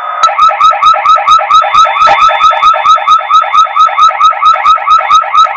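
Recorded electronic siren played through a horn speaker by a homemade recordable voice siren module on a Honeywell Lynx alarm panel: a fast yelp of about six rising sweeps a second, with a thin steady high tone alongside. This is the alarm sounding off after the module's recorded voice message.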